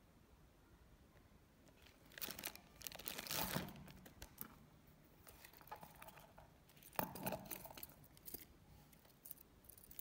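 Clear plastic bag crinkling and rustling in bursts as a wristwatch is unwrapped from it by hand, starting about two seconds in.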